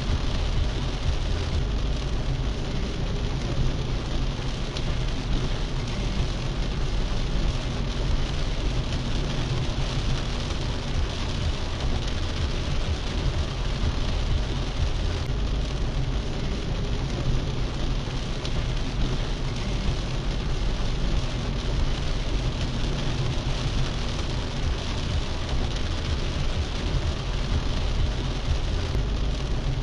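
Heavy rain falling on a car's roof and windscreen, heard from inside the cabin as a steady hiss over the low rumble of the car running in slow traffic.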